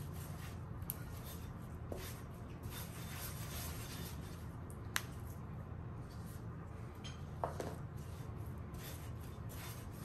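Hands kneading sticky cheese dough in a glass mixing bowl: soft, repeated rubbing and squishing as dry flour is worked in, with a sharp tap about halfway through and a lighter knock a little later, over a steady low hum.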